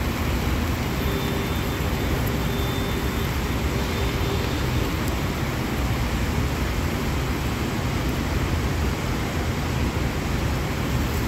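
Steady, unbroken running noise, heaviest at the low end, from carbon-arc lead welding as the glowing carbon rod heats molten lead on an industrial battery terminal. A faint steady tone sits over it for a few seconds near the start.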